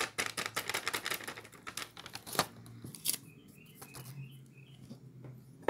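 Plastic bag crinkling and rustling as dry pancake mix is shaken out of it into a stainless steel bowl: a dense run of rustles and ticks, then two sharper clicks about two and a half and three seconds in. After that it quietens to a low hum with a few faint high chirps.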